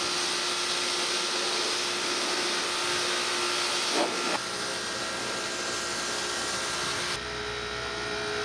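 Pressure washer spraying water onto sheet-metal light fixture parts, its pressure turned down a little: a steady hiss of spray over the machine's steady hum. About seven seconds in the spray hiss drops away and the machine keeps running.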